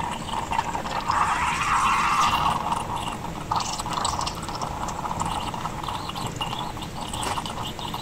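Espresso machine steam wand frothing milk in a mug: a steady hiss with rough sputtering, loudest about a second or two in.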